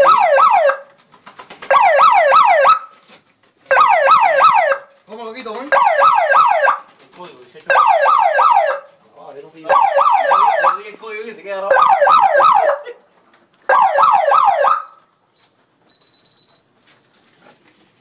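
Electronic alarm siren of a loft security system, sounding through a horn speaker: loud bursts about a second long of fast falling whoops, about four a second, repeating every two seconds. It stops about fifteen seconds in.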